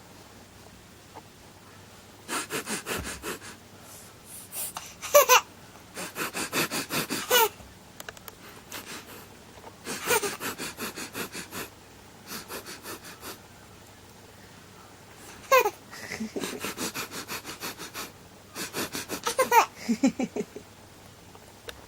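Baby sniffling and huffing in quick, rhythmic bursts of short breaths, about seven bouts, playing with her breathing, with brief squeaky voiced sounds mixed in.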